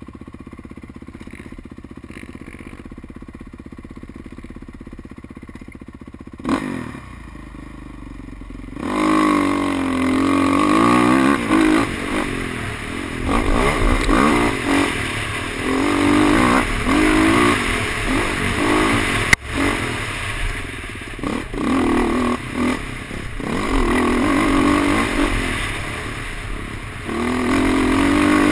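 Dirt bike engine running at low, steady revs, then opening up about nine seconds in and pulling hard along the trail, its pitch repeatedly rising and falling with throttle and gear changes. One sharp knock a little past halfway.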